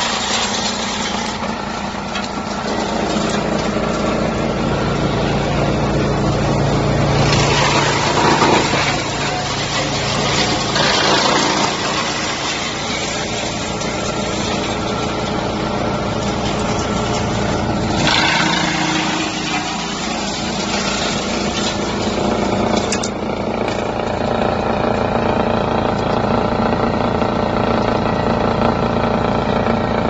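Drum wood chipper running with a steady machinery drone. Several bursts of louder, noisy crunching come through as wood waste is fed into the drum and chipped.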